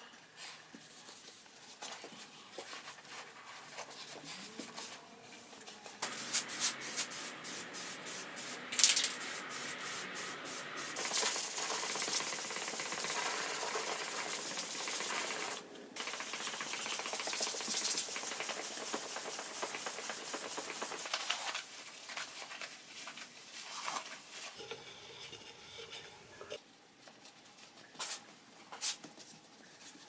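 A cloth being rubbed quickly back and forth over a steel plane iron, giving a hissing scrub. It gets louder about six seconds in, breaks off briefly midway, then gives way to quieter handling with two light knocks near the end.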